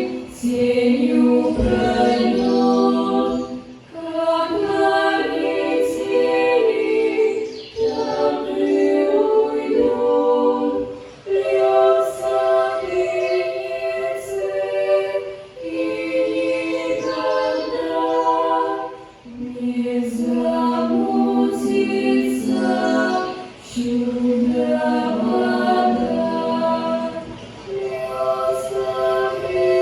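Children's vocal ensemble singing a cappella as a group, in sung phrases with short breaths between them every few seconds.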